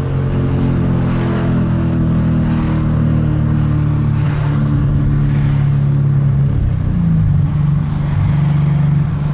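A tuned 2017 Ford Mustang GT's 5.0-litre Coyote V8 running steadily on the move with a deep, even note. The pitch shifts slightly about seven seconds in.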